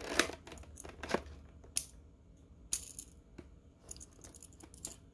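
Light scattered clicks and ticks of a small die-cast metal toy plane being handled and turned over in the fingers, about seven or eight separate clicks spread over a few seconds.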